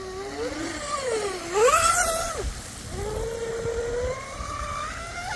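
Oxidean Mini Dom RC boat's electric motor whining as the throttle is worked, its pitch rising and falling several times and climbing again near the end, with a short loud rush of noise about a second and a half in. It is turning an oversized 33x19 propeller on a 4S pack, which the driver calls too much prop.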